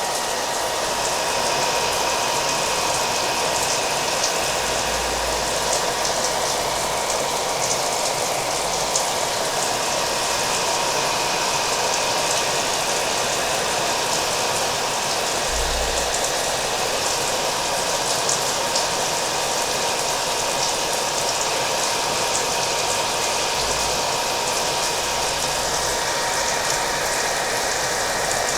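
Hair dryer running steadily, its blowing rush carrying a faint steady whine, mixed with rain falling.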